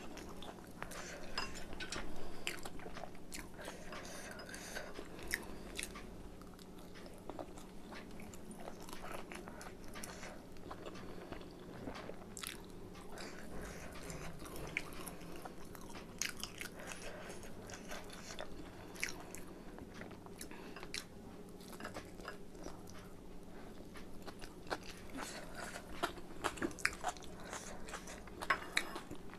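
Close-miked chewing and biting of chicken momos, with many short wet clicks and mouth smacks throughout, over a faint steady hum.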